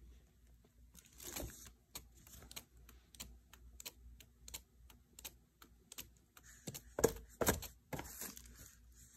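Irregular light clicks and taps, with two louder knocks about seven seconds in, as a paint-covered tile is spun to fling the acrylic pour out to its edges.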